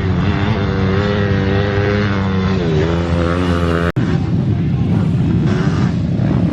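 Pit bike engine running on a motocross track, its revs rising and falling. There is an abrupt cut about four seconds in, after which the engine sound is rougher and noisier.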